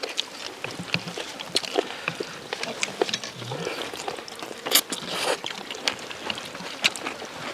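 Scattered clinks and taps of chopsticks and spoons against ceramic bowls as several people eat noodle soup at a table.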